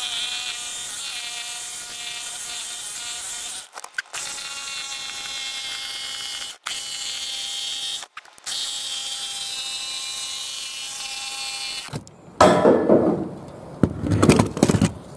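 Cordless jigsaw cutting a round hole through a narrowboat's steel roof: a steady motor whine that stops briefly three times. Near the end comes a louder, rougher rattling as the cut is finished.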